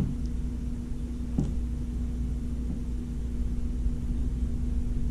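Steady low background hum with a faint steady tone, and one soft knock of plastic parts being handled about a second and a half in.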